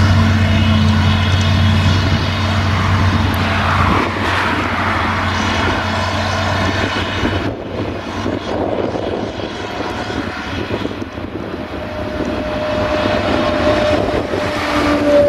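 Claas Jaguar self-propelled forage harvester working in the field, chopping grass and blowing it into a tractor-drawn trailer alongside, with its engine and the tractor's running together as a steady drone. The low hum changes about four seconds in, and a higher steady whine comes in near the end.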